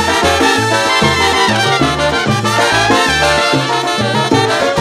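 Live salsa band playing, with trumpets blowing the lead lines over a repeating bass line and percussion.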